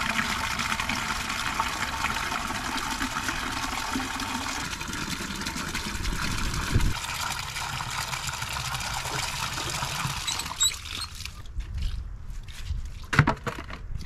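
Water from an outdoor spigot pouring steadily into a plastic bucket, the base of a chicken waterer, stopping about three seconds before the end. A few sharp plastic knocks follow as the red plastic base is fitted onto the bucket.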